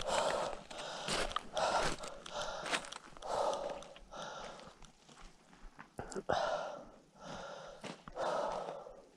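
A hiker walking a gritty canyon trail: repeated crunching footsteps about once a second, mixed with heavy breathing from the effort of the hike.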